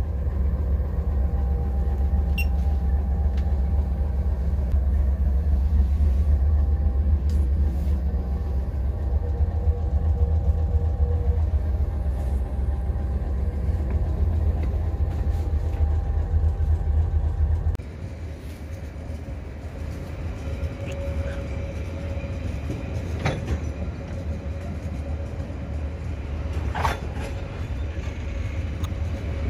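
Diesel locomotive engine running steadily close by, a loud deep rumble. About eighteen seconds in it drops abruptly to a quieter steady hum with a held tone, and two short sharp sounds come near the end.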